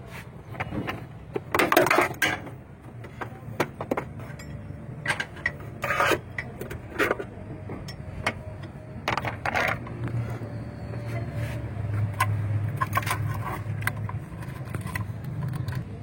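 Metal hand tools clinking and scraping in a handful of short, sharp bursts against a steady low rumble, the sound of work on an engine's crankshaft pulley.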